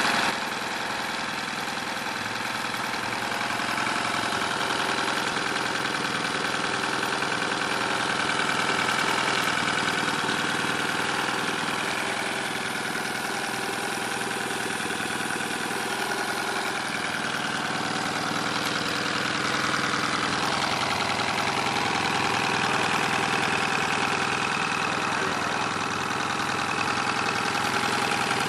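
1996 Mariner 9.9 hp four-stroke outboard motor running steadily at idle in a test tank, heard with its cowling off.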